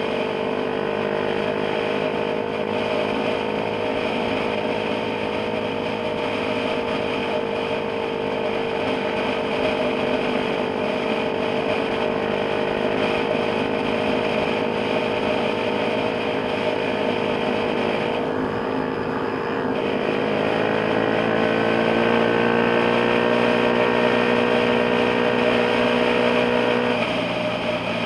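Motorcycle engine running steadily at cruising speed, with wind and road noise. Its note rises a little about two-thirds of the way through and drops briefly near the end.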